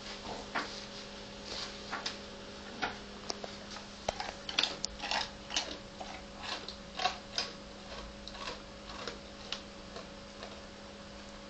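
A basset hound working a treat out of a rubber Kong toy: irregular small clicks and taps, about one or two a second, as she noses and mouths the toy on the carpet.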